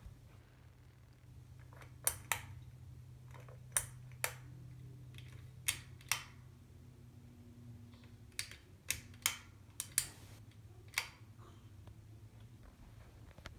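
Harbor Breeze Springfield II ceiling fan: sharp clicks, mostly in pairs, over the low hum of its motor. The hum changes twice after a pair of clicks, as when the pull-chain switch steps the fan through its speeds.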